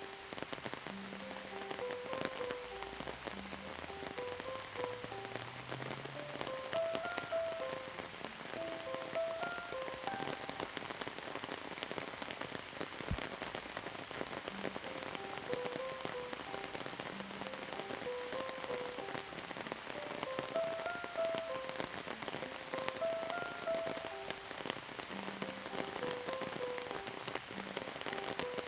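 Steady rain falling on a surface, a continuous patter of many fine drop impacts. A soft melody of short held notes plays over it.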